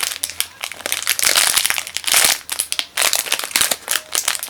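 Plastic packaging crinkling loudly and irregularly close to the microphone as a squishy toy is handled in its bag.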